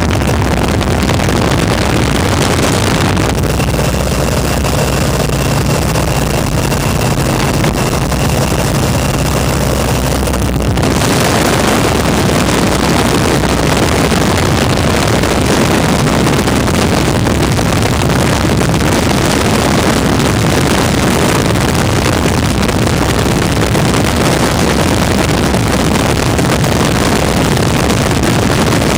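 Radial engine and propeller of a WACO open-cockpit biplane running steadily in cruising flight, heard under heavy wind rush on the microphone. About three seconds in, the wind hiss drops and the steady engine drone comes through more plainly, until the full wind noise returns about eleven seconds in.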